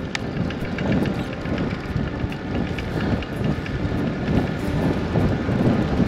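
Wind buffeting the microphone in uneven gusts while moving along a road, with faint rapid ticking underneath.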